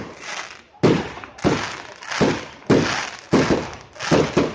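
Fireworks going off in a quick series of bangs, about six in under four seconds, each sharp bang trailing off in a short rumble.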